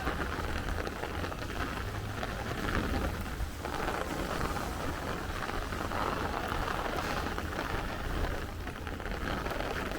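Heavy downpour of thunderstorm rain falling steadily, with a low steady rumble of gusty wind underneath.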